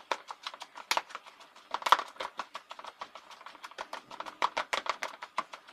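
Stone pestle knocking and clacking against a plastic bowl as it pounds and mixes shredded green mango and pineapple. The knocks come in a rapid, irregular run, several a second, with the loudest about two seconds in.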